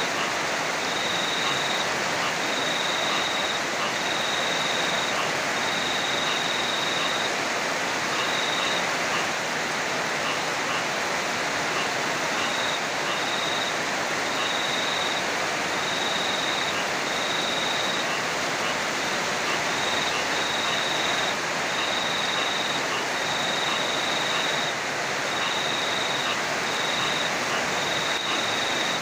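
Steady heavy rain, a dense even hiss, with an insect trilling high above it in repeated bursts of about a second each.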